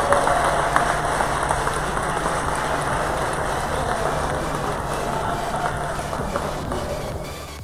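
Crowd hubbub and hall noise from spectators and handlers around an indoor show ring, gradually fading out toward the end.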